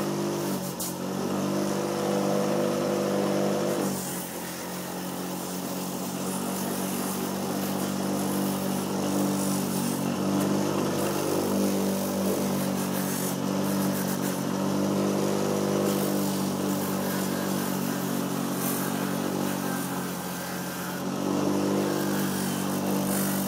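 A bench grinder running steadily while the soft cushioned sole of a running shoe is pressed against its spinning wheel and sanded down. The grinding swells and eases a few times as the sole is pressed on and moved about.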